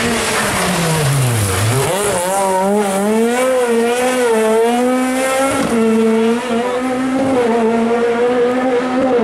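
Rally car engine (Renault Clio rally car): the revs drop steeply under braking over the first second and a half, then climb and waver as the car powers through a tight turn. A steadier high engine note follows after an abrupt change about six seconds in.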